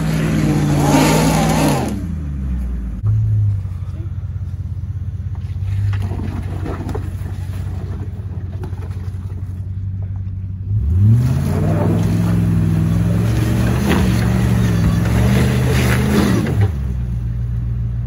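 Land Rover Discovery 2's V8 engine under load on a rocky climb. It revs high, drops back to a steady idle about two seconds in, then revs up sharply again about eleven seconds in, holding with small surges for several seconds before falling back to idle near the end.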